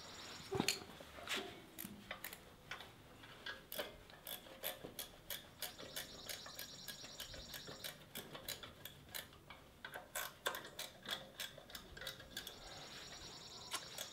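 A wrench ratcheting as the engine's mounting bolts are tightened: a long run of quick metallic ticks, a few a second, with a short pause about halfway, stopping a couple of seconds before the end.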